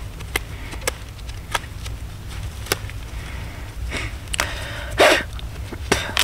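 Feathers being plucked by hand from a dead grouse that has gone stiff, so the feathers are hard to pull: scattered sharp ticks and rustles, with a louder short rushing burst about five seconds in.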